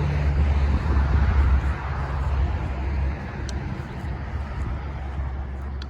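Low engine rumble of a road vehicle, loudest for the first few seconds and then easing off as it moves away.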